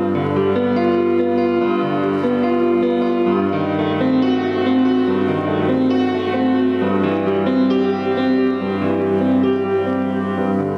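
Grand piano played solo: a church prelude of held, overlapping notes and chords.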